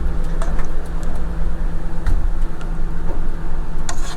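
Motor yacht's engine running steadily under way, a loud low drone with a steady hum, heard on board. A few light clicks and knocks sound over it.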